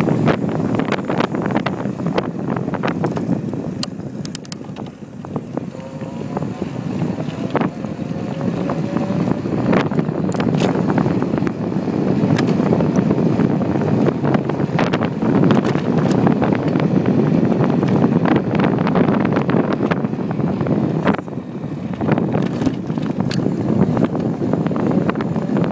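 Wind buffeting the microphone on a fast-moving electric bike: a steady, uneven rushing noise with scattered clicks and rattles, easing briefly about five seconds in before building again.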